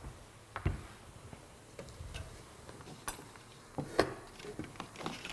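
A few scattered knocks and clicks of small ingredient containers and bowls being picked up and set down on a table, the loudest about four seconds in.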